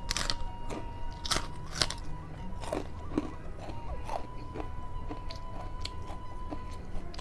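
Close-up crunching and chewing of a mouthful of emping melinjo crackers with rice. A run of sharp crunches, loudest in the first two seconds, gives way to smaller, softer chewing crunches.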